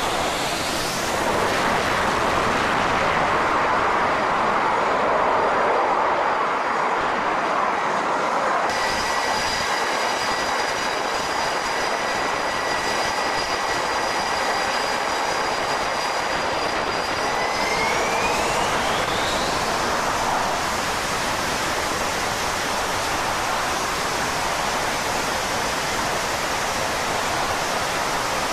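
Twin jet engines of an F/A-18 Super Hornet running on the flight deck: a loud, steady rush with a thin high whine over it. About eighteen seconds in the whine rises in pitch as the engines spool up toward launch power.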